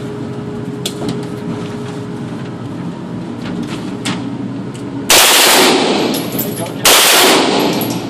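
Two long bursts of full-automatic fire from an MP5 submachine gun, the first about five seconds in and lasting nearly two seconds, the second following straight after and lasting about a second; the shots run together into continuous blasts that echo in an indoor range. Before them, only a steady ventilation hum and a few faint clicks.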